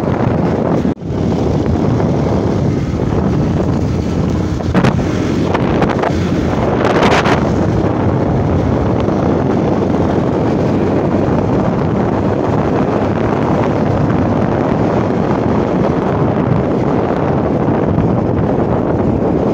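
Wind buffeting the microphone over a motorcycle's engine and tyres running on a dirt and gravel road, a steady rush of noise. It drops out sharply for a moment about a second in.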